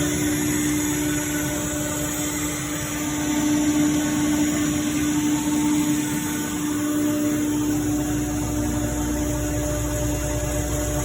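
Ingersoll Rand 15 HP rotary screw air compressor running with a steady drone and a strong steady tone. About seven seconds in, a deep low rumble joins and holds.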